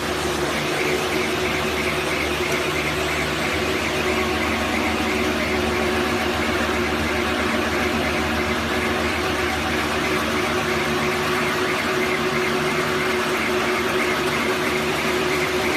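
Agricultural baler running steadily: a constant machine hum with a high, fluttering metallic band above it and no break or change.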